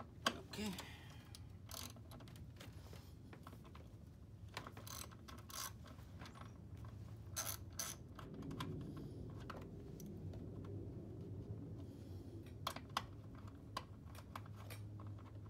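Ratchet socket wrench with an extension clicking in short, irregular runs as it loosens the single nut holding a plastic engine cover.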